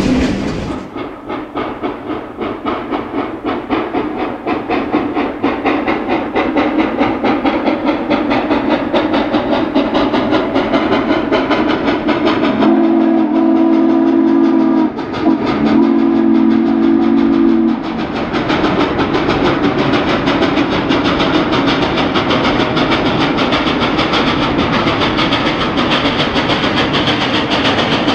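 Western Maryland 734, a 2-8-0 Consolidation steam locomotive, working with a rhythmic exhaust beat and rail clatter that grows louder as it approaches. About halfway through it sounds its chime steam whistle in two long blasts, a deep steady chord with a short break between them.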